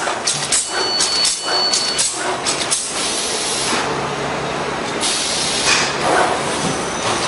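Plastic bag-making machine running: rhythmic clacking of its mechanism, about three strokes a second, over a steady hiss and low hum. The clacking drops away for a couple of seconds in the middle and then picks up again.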